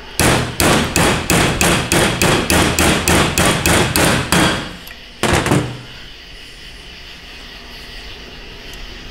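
Hammer striking metal in a quick, even run of about a dozen blows, roughly three a second, then a single blow about five seconds in, driving a steel ball into a hole in a 4L60 transmission.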